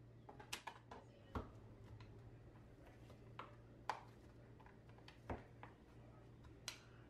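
Kitchen knife knocking on a plastic cutting board while cubing grilled chicken: scattered short sharp knocks, several close together in the first second, then one every second or so. A low steady hum sits under them.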